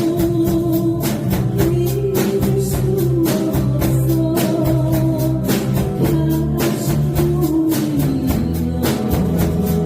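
Live rock band playing a trot song: drum kit keeping a steady beat on the hi-hat, bass guitar, electric guitar and keyboard under a sustained melody line.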